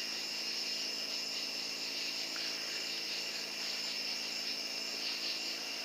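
Crickets chirping in a steady night-time chorus, a continuous high pulsing trill.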